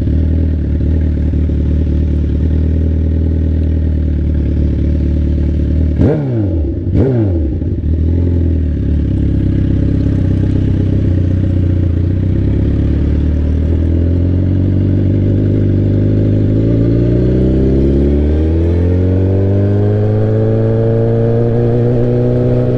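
Straight-piped sport bike exhaust running loud at steady revs. The revs drop sharply twice, around six and seven seconds in, then climb slowly through the second half and level off near the end.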